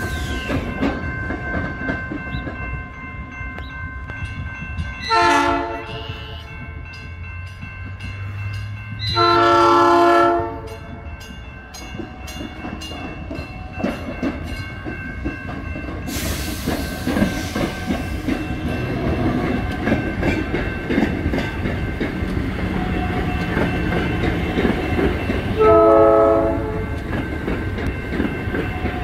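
South Shore Line electric commuter train passing with wheels clattering over the rail joints. It sounds its horn three times: a short blast about five seconds in, a longer, louder blast around nine seconds in, and a short blast near the end.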